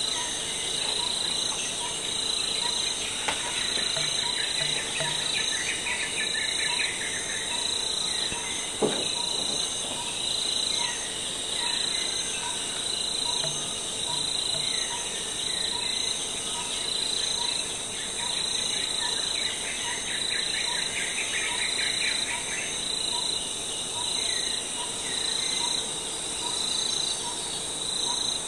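Jungle insect chorus: several insects trilling steadily at high pitch, with a short pip repeating about every three-quarters of a second. Bird-like chirping comes in twice, and a single sharp knock sounds about nine seconds in.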